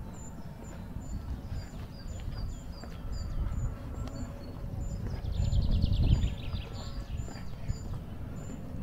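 Outdoor countryside ambience: short high-pitched chirps repeating a few times a second, with a brief buzzy trill about five seconds in, over a steady low rumble.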